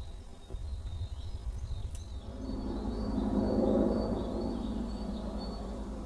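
Outdoor ambience with a steady low rumble and a swell of noise that builds about two seconds in, peaks near the middle and fades, while a small bird gives faint high chirps; one short click about two seconds in.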